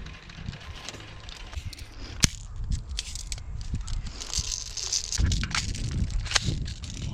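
Rustling and crunching of movement through dry leaves and brush, with gear rattling. There is one sharp snap about two seconds in and a few more clicks later.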